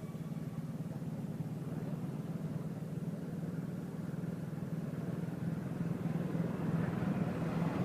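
A motor vehicle engine running steadily with a low hum, growing louder near the end as it comes closer.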